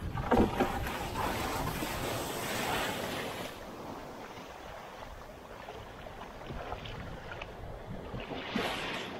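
Shallow-water surf washing and splashing against the wooden hull of an outrigger boat as it runs into the shallows, with wind on the microphone. The wash is louder for the first three seconds or so, then softer, with a brief splash near the end.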